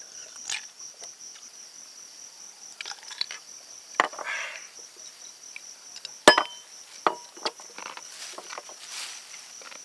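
Crickets chirping steadily, with scattered clinks and knocks of glass beer bottles and drinking glasses on a concrete table; the sharpest clink, with a brief ring, comes about six seconds in.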